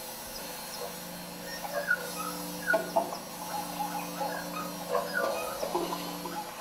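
Free-improvised music: a bass clarinet holds a long, steady low note, with short squeaky chirps, little falling glides and clicks scattered over it.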